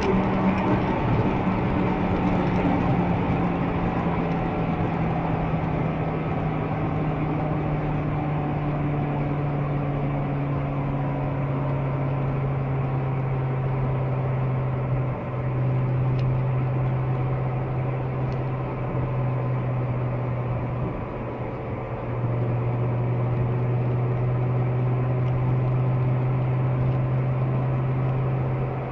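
Lamborghini Gallardo LP550-2's V10 engine running under way. Its note falls gradually in pitch over the first dozen seconds, then holds steady, with a brief dip about halfway and a short lull a little later.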